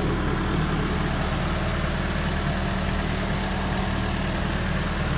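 Diesel-engine hydraulic rig heater, a small Cat C4 unit, idling steadily with its blower running while it warms up toward its cycling temperature.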